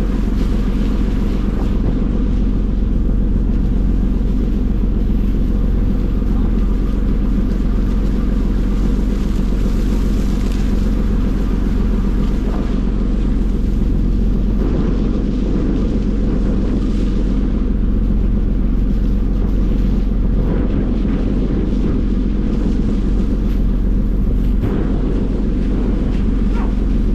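The fishing vessel's engine runs with a steady low drone, with a fainter wash of water over it.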